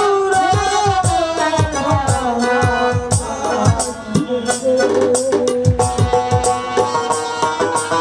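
Bangladeshi jatra folk music: a hand drum beats a steady rhythm under a melody that slides and bends in pitch for the first few seconds, then settles into steadier held notes.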